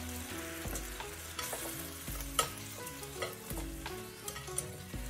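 Dumplings sizzling as they pan-fry in a nonstick frying pan while chopsticks and a wooden spatula turn them, with several sharp clicks of the utensils against the pan, the loudest about two and a half seconds in.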